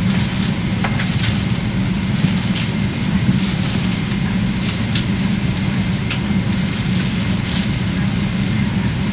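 Steady low drone of a Boeing 777-300ER airliner cabin before takeoff, with scattered short crinkles and rustles of packaging being handled.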